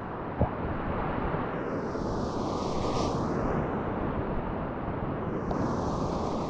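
Whitewater rapids rushing around a kayak: a steady noise of churning water, with a single short knock about half a second in.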